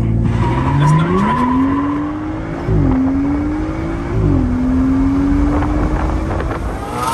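BMW 3 Series engine under hard acceleration, heard from inside the cabin: the revs climb steadily, drop sharply at an automatic upshift a little under three seconds in and again about a second and a half later, then climb once more.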